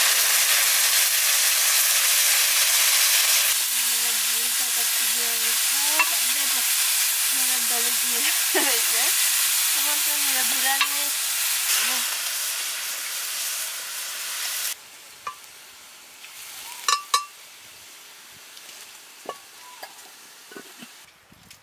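Food frying in hot oil in a cooking pan: a loud, steady sizzle that cuts off suddenly about fifteen seconds in, leaving a quieter background with a few sharp clicks.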